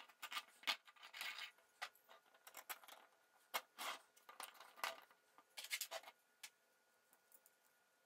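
Faint, irregular clicks and scrapes of 3D-printed plastic parts being handled and fitted together, as a crankshaft is pushed through its bushings and a plastic flywheel is slid onto it.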